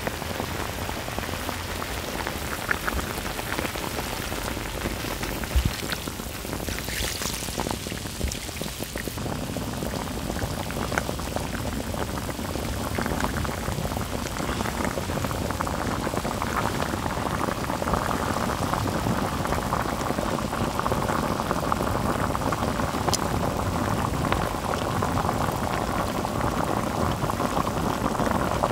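Beef ribs and aged kimchi simmering in a cast-iron pot-lid griddle, the braising liquid bubbling and sizzling steadily. It grows louder about halfway through.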